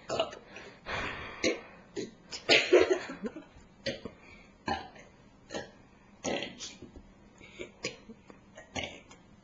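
A person burping: a series of short burps and throaty sounds, the loudest and longest about two and a half seconds in.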